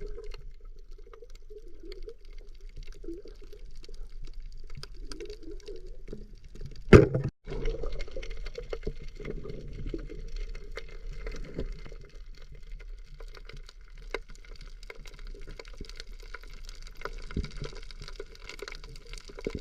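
Water sloshing and gurgling at low level, with one sharp knock about seven seconds in.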